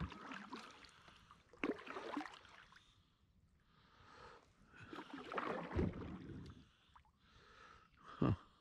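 Kayak paddle strokes: the blade dipping and pulling through the water with splashing and dripping, a few strokes spaced unevenly, the sharpest splash near the end.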